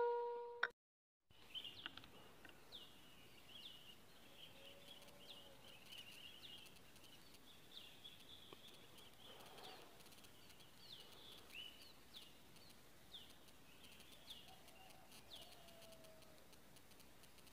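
The ringing tail of an air rifle shot fades out in the first half-second. Then faint, high, short chirps of small birds come about once a second.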